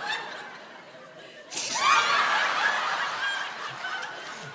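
Audience laughing: the laughter dies down, then a fresh, louder burst of laughter breaks out about a second and a half in and carries on.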